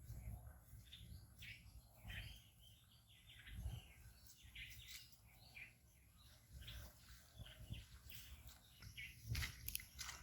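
Faint outdoor birdsong: many short, scattered chirps over a low rumble, with a few sharp clicks near the end.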